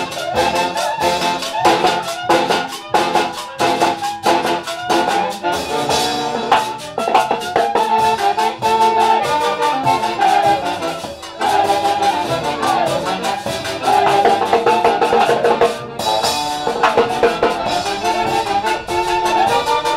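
Orchestra playing lively music, brass in front with trumpets over a steady drum beat.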